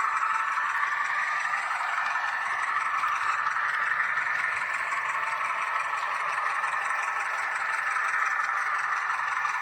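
H0 model locomotive running along the track: a steady whirring of the small motor and gears, with the wheels rattling over the rails. The pitch drifts slowly.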